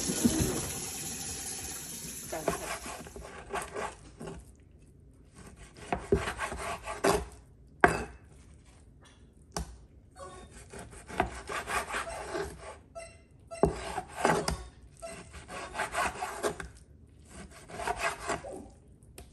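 A kitchen tap runs into the sink for the first couple of seconds. Then a large cleaver-style knife saws and chops through raw beef on a wooden cutting board: repeated scraping strokes, with a few sharp knocks of the blade against the board. The knife is not sharp enough to cut cleanly.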